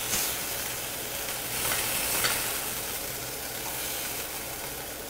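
Chicken breast sizzling as it sears in hot olive oil in a frying pan, with a few light scrapes and taps of a utensil in the pan as the pieces are lifted out.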